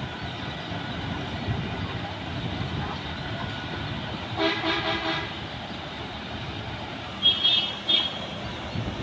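Steady outdoor traffic rumble with a vehicle horn blaring for about a second near the middle, then a shorter, higher-pitched horn beeping twice near the end.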